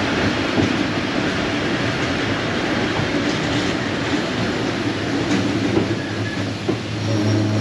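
Isle of Man Steam Railway carriage rolling along the rails with a steady rumble and clatter of wheels as the train runs slowly into a station. Near the end a steady low hum and a thin high whine come in as it draws to a stop.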